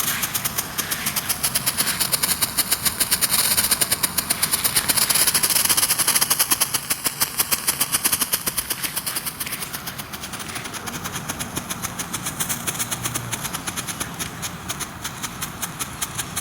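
A consumer ground fountain firework (World Class Red Laser Show) burning with a rapid, even crackle over a hiss. It is loudest through the first half and eases off about ten seconds in.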